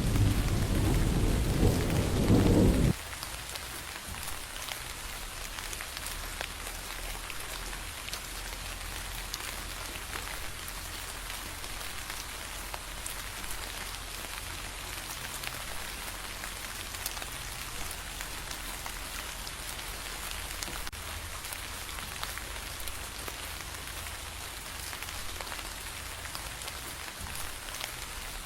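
A low rumble of thunder under heavy rain, cut off abruptly about three seconds in. After that comes steady rain, a hiss with scattered drops ticking.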